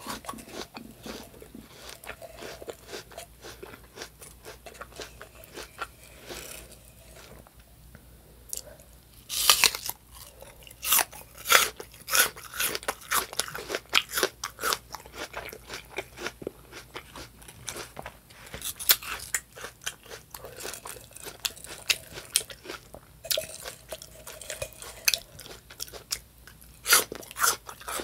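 A person biting and chewing crisp apple slices close to a microphone, making a run of crunches. The crunches are sparse and soft at first, then come thicker and louder from about nine seconds in.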